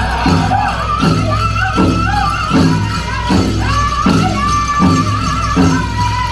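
Powwow drum group singing a men's chicken dance song: several high men's voices held over a big drum struck in an even beat, about three strokes a second.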